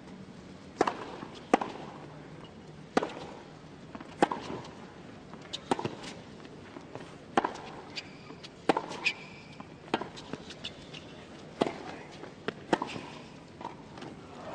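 Tennis rally on a hard court: a string of sharp pops from the ball being struck by the rackets and bouncing on the court, about one every second or so, over faint crowd hush.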